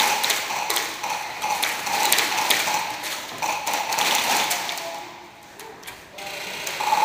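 Airsoft electric guns firing rapid full-auto bursts, each burst a buzzing whine with many sharp taps. They come about every second or two, pause briefly about five seconds in, and start again at the end.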